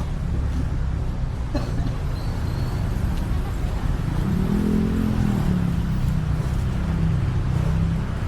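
Steady low road-traffic rumble, with a vehicle engine rising and falling in pitch as it passes about halfway through. A single sharp knock comes about a second and a half in.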